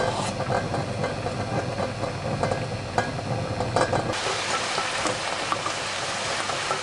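Bulgogi meat sizzling as it is stir-fried in a pan, with clicks of a utensil stirring it. About four seconds in, the sound changes abruptly to a steadier, hissing sizzle.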